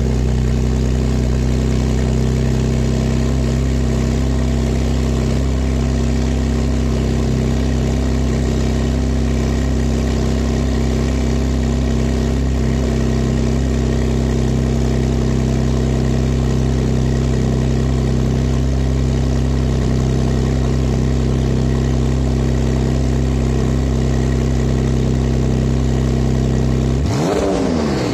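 Porsche 991 Targa 4's 3.0-litre twin-turbo flat-six idling steadily through a Fi Exhaust valved catback muffler and catless downpipe. About a second before the end it starts to rev, its pitch sweeping up and back down.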